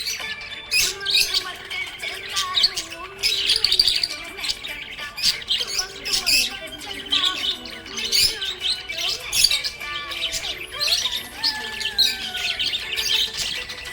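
Budgerigars chirping and squawking continuously in rapid, overlapping high-pitched calls.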